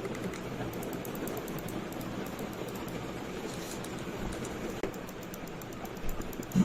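Delux M700 gaming mouse buttons being clicked: runs of quick, light clicks, with one louder click near the end.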